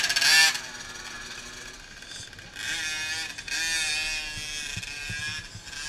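Engines of 50cc kids' motocross bikes revving: one passes close and loud right at the start, then another engine rises and falls in pitch from about three seconds in.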